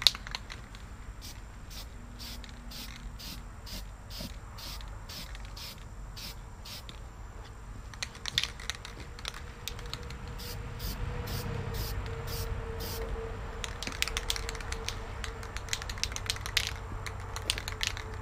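Aerosol can of rust reformer spray paint being shaken, its mixing ball rattling in regular clicks about three times a second, and sprayed onto the steel bucket in short hissing bursts.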